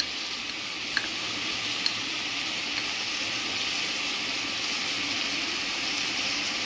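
Basmati rice frying in hot corn oil in an aluminium pot, with a steady sizzle. Two faint clicks come about one and two seconds in.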